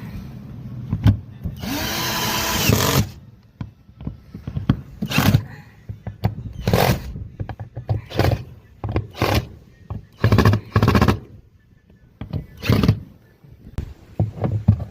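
Repair-bench tool work: a power tool runs for about a second, then a string of short, sharp, irregular bursts and knocks.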